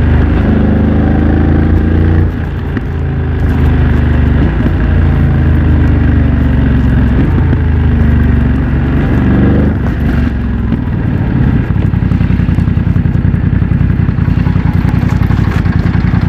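A BMW F900 XR's parallel-twin engine, heard through a MIVV X-M1 aftermarket exhaust, running under way with its pitch falling as the bike slows. About eleven seconds in it settles to a steady, pulsing idle.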